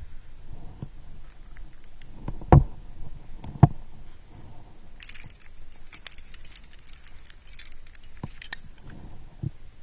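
Climbing gear (carabiners and quickdraws) clinking and jangling on the climber's harness as they move on the rock, most busily in the second half. Two loud knocks about two and a half and three and a half seconds in.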